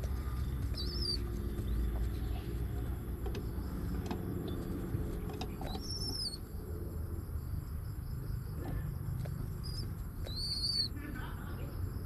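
Domestic pigeon cooing low at the nest, over a low rumble. A smaller bird's short, high chirps come through about three times.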